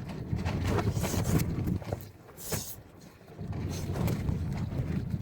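Gusty wind buffeting the microphone in a low rumble that swells and eases, dropping to a lull about two seconds in before picking up again, with a few short clicks and rustles over it.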